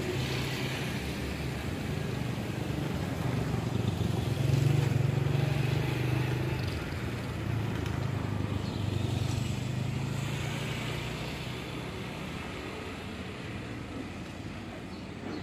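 Stainless-steel passenger coaches of a diesel-hauled train rolling slowly past, a steady low rumble of wheels on the rails, easing off in the last few seconds as the end of the train goes by.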